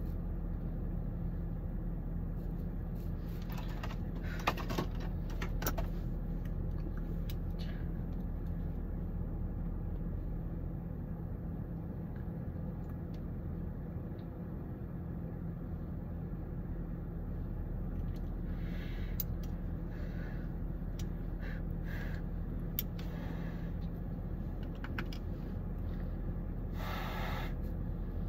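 Steady low hum of a parked car running, heard from inside the cabin. Now and then small clicks and brief rustles of tweezers and makeup being handled close by, the longest rustle near the end.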